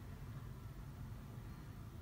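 Steady low hum with a faint hiss behind it, unchanging throughout.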